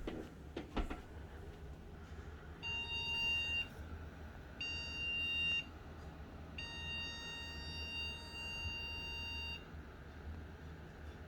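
Desktop PC's motherboard error beeps: a high steady tone sounds three times, twice for about a second and then once for about three seconds, over a low fan hum. The beeps warn that the newly fitted GTX 1660 Ti graphics card cannot start; the owner finds the cause is too little power, as the motherboard slot gives 75 W and the card needs 130 W.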